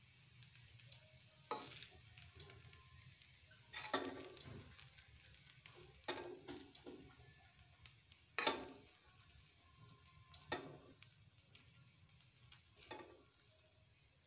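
Metal spatula scraping and knocking against a metal wok of fried rice as the rice is scooped out onto a plate, a stroke about every two seconds, with a faint steady hiss underneath.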